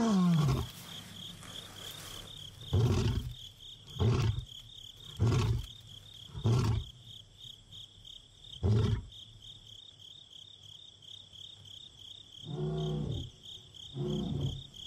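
Male lion roaring: the tail of a long roar sliding down in pitch, then a run of five short, deep grunts about a second apart, the way a lion's roaring bout ends. Two more deep calls come near the end, over a steady trill of crickets.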